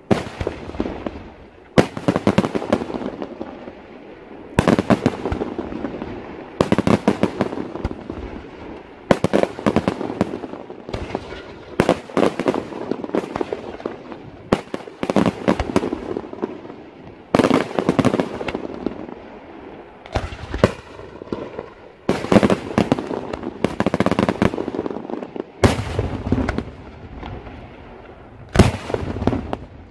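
Daytime aerial fireworks: shells bursting overhead in rapid succession, each salvo a cluster of sharp bangs and crackling, coming every second or two. Deeper booms come near the end.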